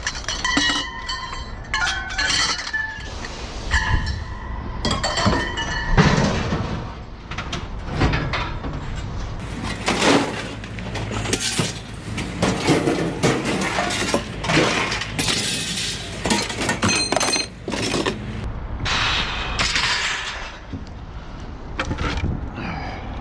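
Scrap metal being thrown onto a pile: a rapid run of crashes and clanks, some pieces ringing briefly after they land, with breaking and clinking among them.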